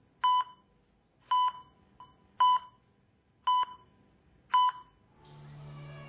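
Heart monitor beeping in time with the ECG trace: five short, high beeps about once a second. About five seconds in, a soft music bed fades in.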